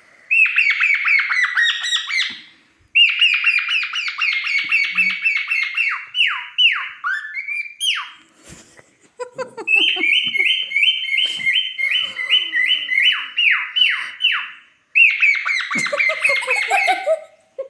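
Cockatiel calling in rapid runs of short, high, falling chirps, about five or six a second, in several bursts broken by brief pauses, with a few longer falling calls between them.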